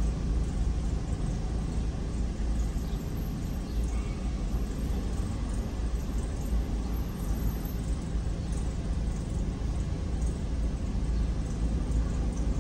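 Steady low rumble of road traffic and the idling car, heard from inside the car while it waits at a red light, with cross traffic driving past in front.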